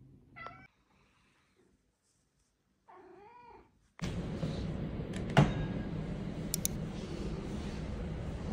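A cat meows twice: a short call about half a second in and a longer, wavering one about three seconds in. About halfway through, a steady rushing background noise starts suddenly, and about a second and a half later there is one sharp knock.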